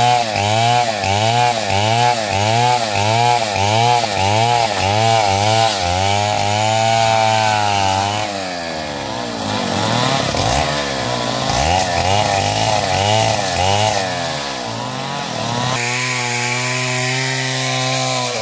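Stihl MS 070 two-stroke chainsaw running loud while cutting wood, its engine pitch wavering up and down about twice a second. Partway through the pitch sinks and climbs again, and near the end it runs steady at a lower pitch.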